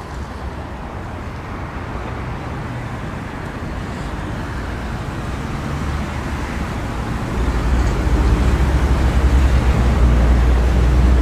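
2016 Skoda Octavia (A7) engine idling with a steady low hum, which gets louder about two-thirds of the way through.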